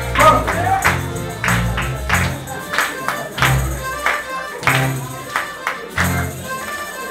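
Live small ensemble playing a lively French tune on accordion and guitar, with tambourines and hand percussion keeping a steady beat of about two strokes a second.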